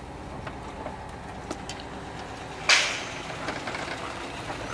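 Volkswagen Kombi engine idling with a steady low hum, heard from inside the van. About two and a half seconds in, a short, loud burst of noise cuts through and fades quickly.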